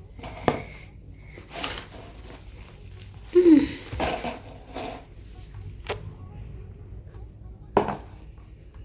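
Fruit being handled and set into a basin: scattered knocks, rustles and a sharp click, with a brief voice sound about three and a half seconds in.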